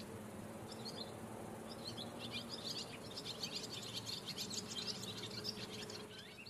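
Small birds chirping in rapid, overlapping short calls, over a faint steady low hum, fading out near the end.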